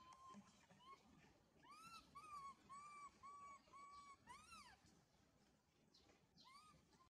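Infant long-tailed macaque crying: short, arching whimper calls, a quick run of about six from about two seconds in, then a higher call that rises and falls, with fainter ones before and after.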